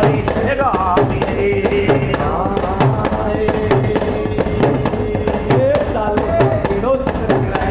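Live devotional bhajan music: voices singing over a long held note, driven by sharp, evenly repeated percussive beats.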